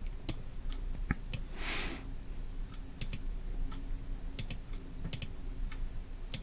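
Irregular clicks of a computer mouse and keyboard, with one soft breathy hiss about two seconds in.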